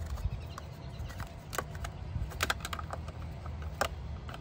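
Hard plastic clicks and taps as a plastic oil-filter drain tool is pushed and fitted into place under the oil filter of an outboard engine: a handful of scattered sharp clicks over a steady low rumble.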